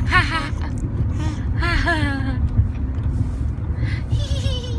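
A baby's short, high-pitched vocal sounds, twice, each rising and falling in pitch, with a fainter one near the end, over the steady low rumble of a car on the move.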